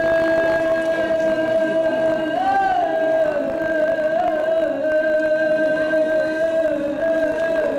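Traditional Minangkabau dance music: a wind instrument holds one long, unbroken note, wavering briefly about two and a half and four seconds in.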